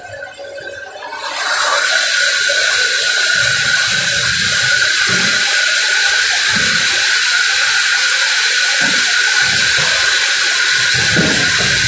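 A sawmill machine running: a loud, steady hiss with a high whine through it, rising in about a second in and then holding.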